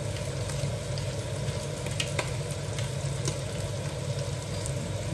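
Meat and mushrooms sizzling steadily in a frying pan over a low steady hum, with faint irregular clicks from a hand-turned pepper mill being ground over the pan.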